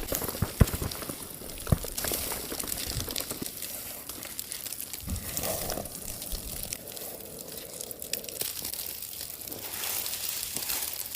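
Crinkling and rustling, with scattered small clicks and knocks.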